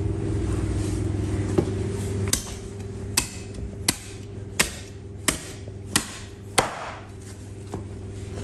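Large butcher's knife chopping through a lamb carcass's ribs and backbone onto a wooden block: about eight sharp strikes, a little faster than one a second. A steady low hum underneath drops away about two seconds in.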